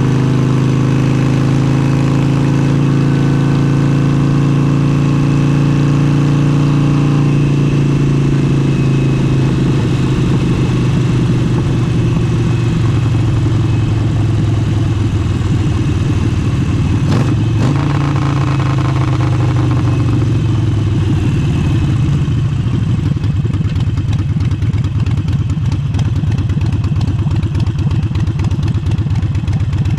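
Harley-Davidson Forty-Eight's 1200 cc air-cooled V-twin running through an aftermarket exhaust. The engine note holds steady, then shifts in pitch as engine speed changes. There is a single sharp knock a little past halfway.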